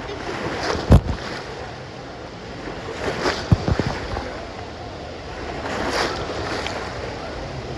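Wave pool water washing and splashing, with a couple of sharp splashes about a second in and around three and a half seconds.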